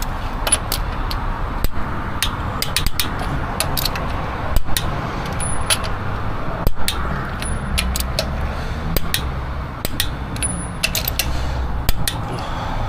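Scattered sharp clicks and light clatter, irregular and a few to the second, over a steady low rumble.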